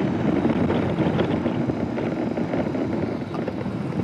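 Steady wind rush and buffeting on the microphone of a BMW R 18 Bagger riding at speed, with the bike's big boxer twin running underneath.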